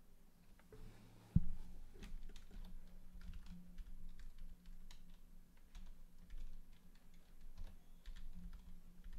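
Irregular computer-keyboard typing clicks over a video-call microphone, with one sharp, louder knock about a second and a half in, over a faint steady low hum.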